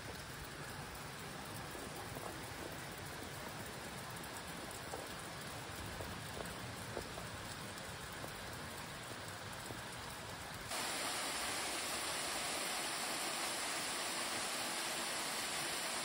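Steady rushing water, an even hiss with no tones. About two-thirds of the way through it cuts abruptly to a louder, brighter rush of water.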